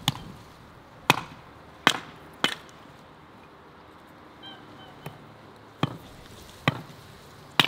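Hatchet chopping firewood: about eight sharp chops at uneven intervals, with a pause of a couple of seconds in the middle.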